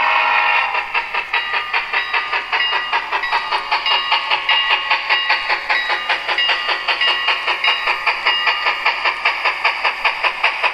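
Tsunami sound decoder in an HO-scale Athearn Genesis Union Pacific Big Boy model playing steam locomotive exhaust chuffs through its onboard speaker, a steady beat of about four chuffs a second as the model runs.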